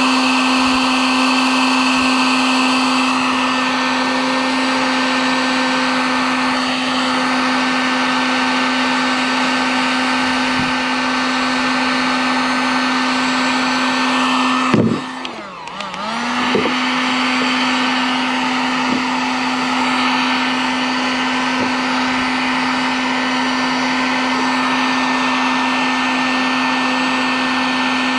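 Handheld electric heat gun blowing, its fan motor running with a steady hum while it melts plastic to weld a patch over a hole in a plastic boat. About halfway through it is switched off, the hum sinking, then switched back on a second or two later and spinning back up.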